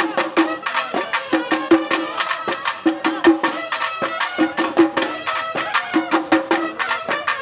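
Festival procession band playing a fast folk tune: wind instruments carry the melody over rapid, steady drumbeats.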